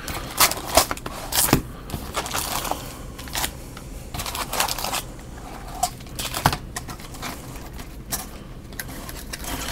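Foil trading-card packs crinkling as they are lifted out of a cardboard hobby box and stacked, with intermittent light taps and scrapes of the cardboard.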